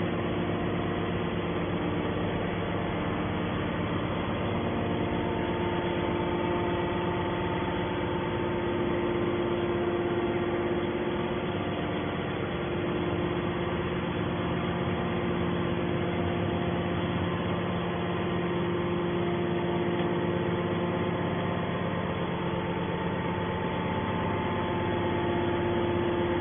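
Hydraulic aluminum can baler's motor and pump running steadily: a constant hum with several steady tones.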